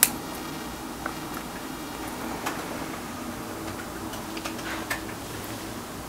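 Wireless lav signal from a Rode Wireless Go II into a Sony FX3, boosted about 30 dB: a steady hiss with a faint low buzz from the camera–transmitter interference, much reduced but not gone with a clip-on noise filter on the cable. A few small clicks from hands handling the camera, the sharpest right at the start.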